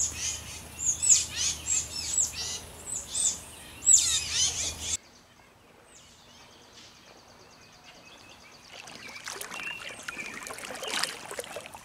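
Songbird chirping: a quick run of sharp, high, downward-sweeping chirps over a low hum. About five seconds in the sound drops off abruptly, leaving only fainter sounds.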